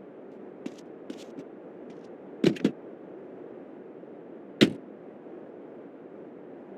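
Sharp knocks against a steady background noise: a few light clicks, then two loud knocks in quick succession about two and a half seconds in, and a single loud knock about two seconds later.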